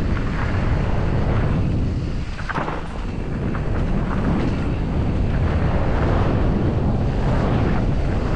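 Wind buffeting the helmet-mounted microphone and tyres rolling over a dirt trail on a fast mountain-bike descent, with a river's rush underneath. The noise drops briefly about two and a half seconds in.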